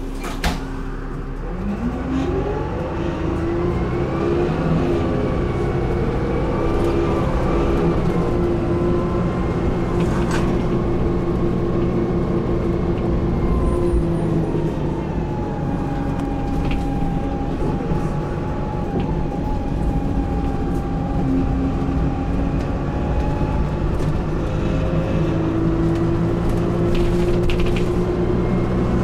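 Dennis Dart SLF single-deck bus heard from inside the rear of the saloon: after a sharp click, the rear-mounted diesel engine and automatic transmission pull away with pitch rising in steps through the gears, then run on at steady speed with slow rises and falls as the bus drives.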